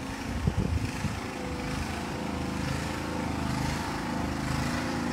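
An engine running steadily with an even hum that slowly grows louder, with a few knocks in the first second.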